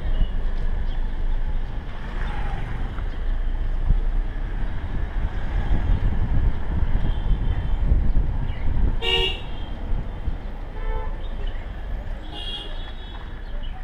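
Low, steady rumble of a vehicle driving slowly along a street, heard at an open side window. A vehicle horn gives a short toot about nine seconds in, and a second, higher toot comes about three seconds later.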